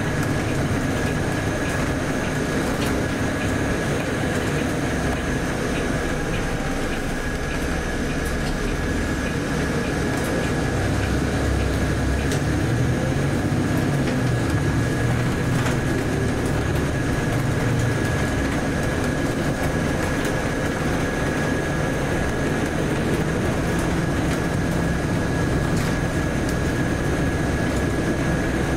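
Volvo B8RLE bus running, heard from inside the cabin: a steady diesel engine and road rumble, with a constant high whine and small scattered rattles.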